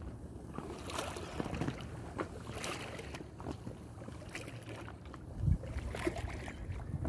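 Plastic paddles of an inflatable boat dipping and splashing in lake water in irregular strokes, over a steady low rumble of wind on the microphone. A louder low thump comes about five and a half seconds in.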